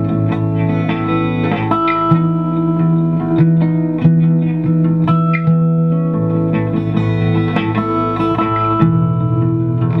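Acoustic bass guitar played fingerstyle, a bass line of held low notes, together with a plucked guitar riff above it.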